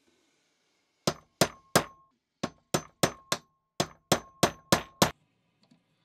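About a dozen sharp metallic hammer blows on a steel punch held against a rust-seized pocket knife in a bench vise, coming in three quick runs, each blow ringing briefly.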